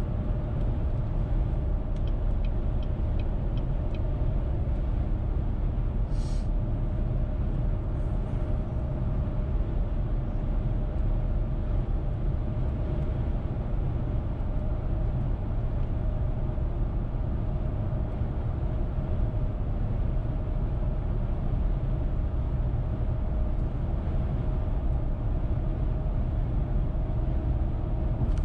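Steady road and engine noise of a car driving, a low rumble with a constant hum. A few faint ticks come about two seconds in, and a short hiss about six seconds in.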